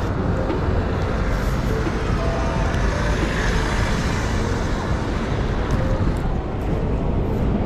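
City street traffic noise, with one vehicle passing close, loudest about three to four seconds in and then fading.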